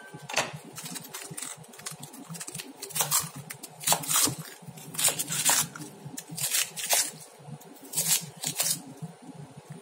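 Serrated kitchen knife cutting through crisp cabbage leaves onto a wooden cutting board: irregular crunchy cuts and knocks of the blade on the board, sometimes several in quick succession.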